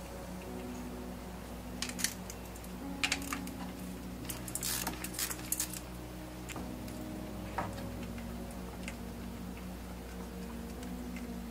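Metallic clicks and clinks of a hand ratchet and socket working the valve-cover bolts, in scattered short bursts about two and three seconds in, a denser run around five seconds, and one more near eight seconds. A steady low hum runs underneath.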